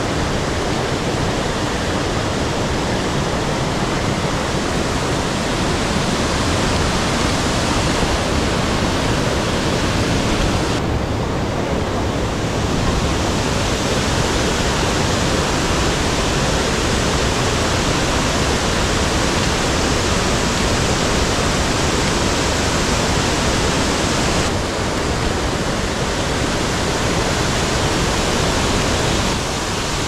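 Waterfall pouring: a loud, steady rush of falling water whose tone shifts slightly a few times.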